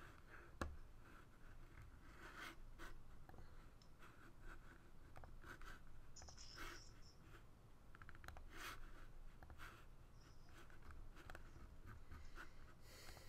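Near silence: quiet room tone with faint, scattered clicks of a computer mouse.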